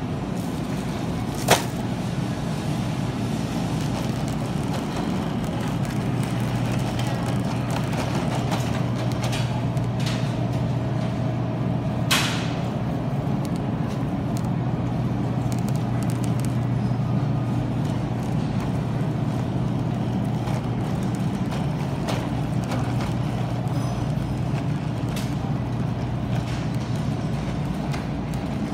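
Steady low mechanical hum of a food store's refrigerated display cases and air handling, with a sharp click about a second and a half in and another about twelve seconds in.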